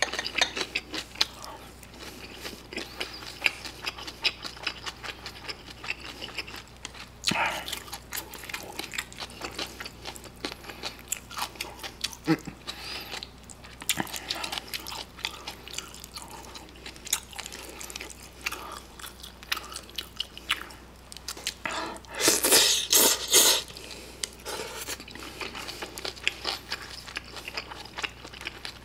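A person chewing and biting into fried pork in kimchi sweet-and-sour sauce with melted mozzarella (gimpi-tang), with many small, irregular wet mouth clicks and smacks. A louder burst of noise comes about 22 seconds in.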